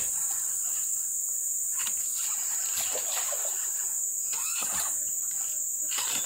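A steady, high-pitched insect drone from crickets or cicadas, the loudest sound throughout, with short rustles of leaves and brush now and then.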